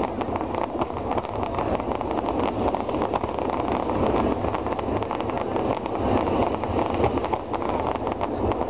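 Fireworks going off: a dense, unbroken crackle of many small pops from bursting shells and crackling stars, with a few heavier bangs scattered through it.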